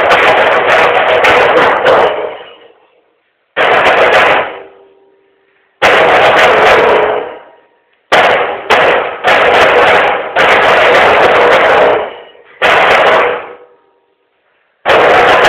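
Percussion ensemble with bass drum and drums playing loud rhythmic passages together. The passages stop dead for about a second several times before the group comes back in.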